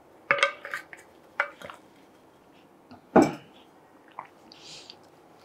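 A few short clinks and clatters of small hard objects being handled, with one loud sharp knock about three seconds in.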